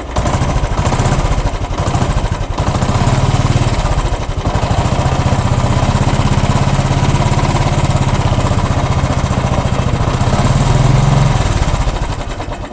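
Royal Enfield Classic 350's single-cylinder engine running, its speed dipping twice in the first few seconds, holding steady, then dropping near the end. The engine is making a noise that the owner thinks is abnormal.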